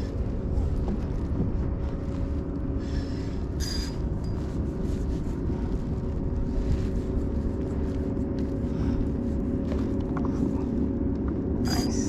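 Steady low engine rumble with a constant hum, as of a motorboat running on the bay. Two brief high-pitched ticks sound about four seconds in and near the end.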